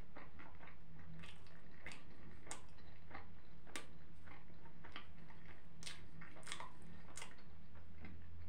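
A person chewing a mouthful of shawarma, with irregular mouth clicks and smacks about twice a second. A steady low hum runs underneath.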